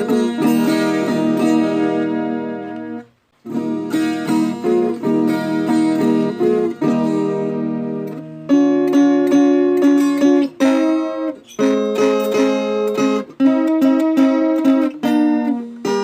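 Viola caipira, the Brazilian ten-string folk guitar, played in plucked and strummed chords. It stops briefly about three seconds in, then comes back, louder and more clipped from about eight seconds on.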